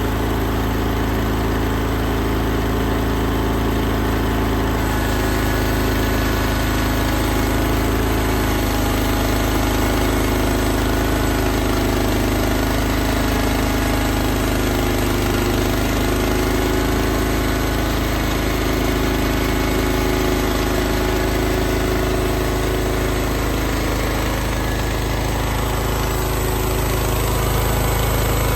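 Engine of a 1988 Kasco II sawmill running steadily, with a higher hiss joining about five seconds in.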